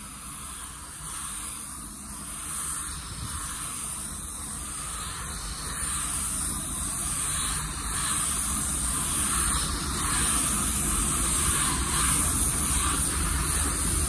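Automotive paint spray gun spraying clear coat: a steady, high hiss of compressed air and atomised paint, growing gradually louder. The gun runs with its fan and fluid controls wide open and no regulator at the gun, its air pressure set by ear.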